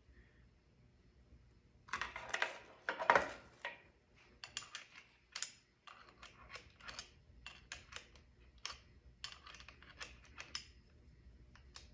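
Handling noise from a small router as its bit height is set and the depth lock is tightened: a louder scraping rustle about two seconds in, then a run of short clicks.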